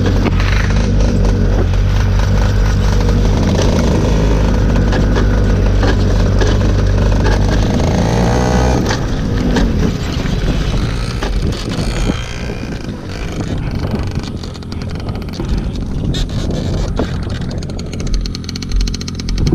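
Racing kart engine running at a steady low idle, its pitch wavering and dropping at about eight to nine seconds as it winds down. After that there is a quieter rushing noise with scattered knocks, but no steady engine note.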